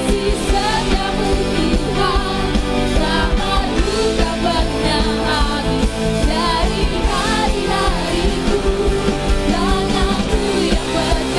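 Worship band music with a steady drum beat and a sung melody.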